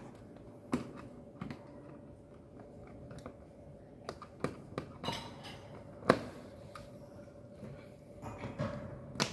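Hands handling wires and tools at a panel of DIN-rail breakers and fuses: scattered clicks and light taps, the sharpest about six seconds in, over a faint steady hum.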